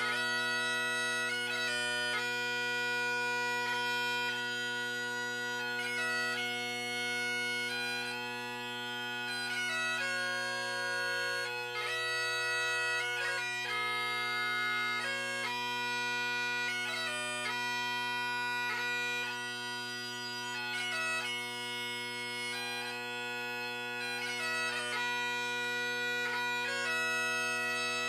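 Great Highland bagpipe playing: a melody of held notes on the chanter over the steady, unbroken sound of the drones.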